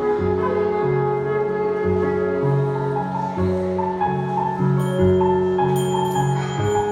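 Electronic keyboard playing a slow piece with held bass notes and sustained chords under a melody line; high, bright notes come in about five seconds in.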